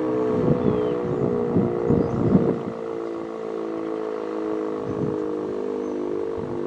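Sentry 10V outdoor warning siren sounding a steady alert signal, several held tones together at an unchanging pitch. Irregular low buffeting runs under it for the first two and a half seconds, then stops.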